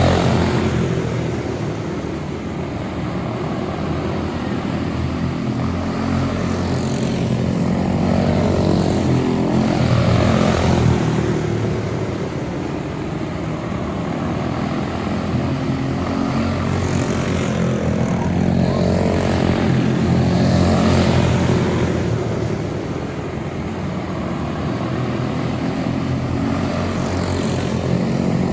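Quarter midget race cars with small single-cylinder Briggs & Stratton Animal engines running laps together. Their buzzing engine note swells and fades every ten seconds or so as the pack passes.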